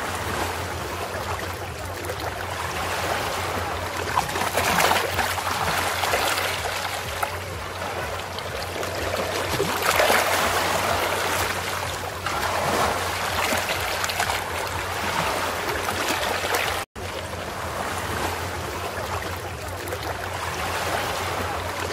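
Running water, a steady rushing that swells and fades every few seconds over a low hum, cut off briefly about seventeen seconds in.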